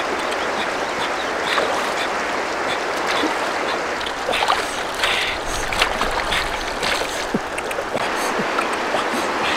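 Shallow river water running over stones, with intermittent splashes as a fish is rinsed and swished in the current.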